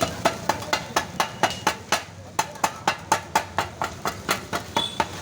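Kothu parotta being chopped on a hot cast-iron tawa with sharp metal blades. The metal strikes the iron in a fast, steady rhythm of about four to five ringing clangs a second.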